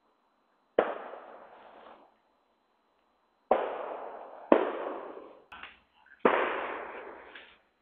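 Four loud, sharp bangs, each dying away over a second or more, with a couple of smaller pops between the third and fourth.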